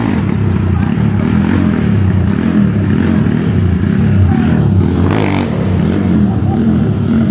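Honda Titan motorcycle's single-cylinder four-stroke engine, bored out to 70 mm and 222 cc, running at low revs as the bike rolls slowly. The engine note stays steady, with no big rev.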